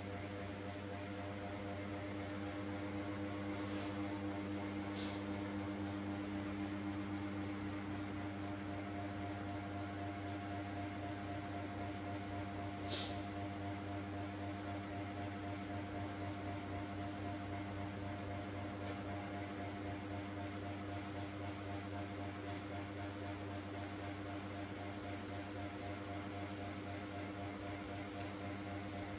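A steady mechanical hum with a fixed low pitch, with a short click about five seconds in and a sharper one about halfway through.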